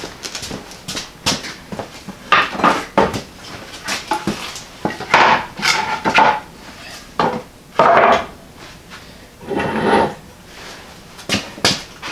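Wooden boards being set down and shifted on a low wheeled dolly, giving a run of irregular knocks and clatters, several of them sharp clunks a second or so apart.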